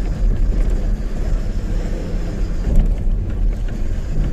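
Tata 1512 truck's diesel engine running steadily while the truck is under way, with tyre and road noise.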